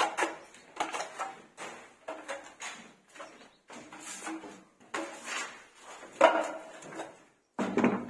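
Steel putty blade scraping across freshly sprayed wall putty in short quick strokes, about two to three a second, levelling the first coat on the wall.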